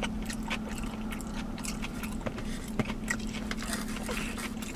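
Close-miked chewing and mouth sounds of a person eating, with small clicks and scrapes from a plastic fork in a takeout container, over a steady low hum.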